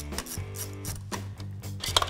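Background music with a steady bass line, with a few short light clicks over it.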